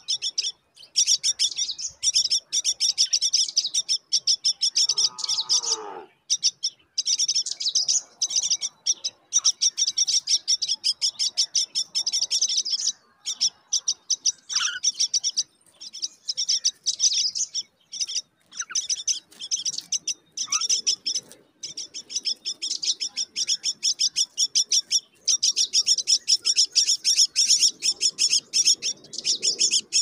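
Common myna nestlings begging: long runs of rapid, high, scratchy chirps with short breaks. About five seconds in there is a single lower call that slides down in pitch.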